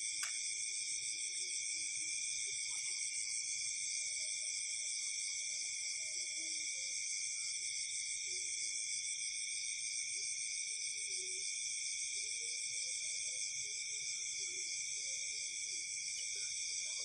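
Night-time insect chorus: a steady high-pitched trilling in several layered bands that keeps on without a break.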